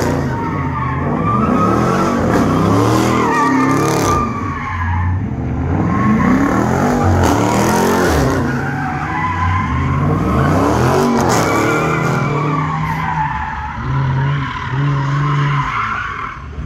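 Dodge Challenger doing donuts: tires squealing in a long continuous skid while the engine revs up and down over and over. The squeal stops just before the end.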